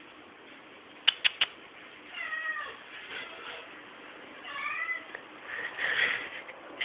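Domestic cat making a run of short, wavering chirping meows, worked up at a fly it has spotted. Three sharp clicks come about a second in.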